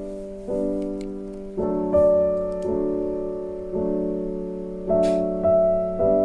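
Background piano music: chords struck about once a second, each ringing on and fading.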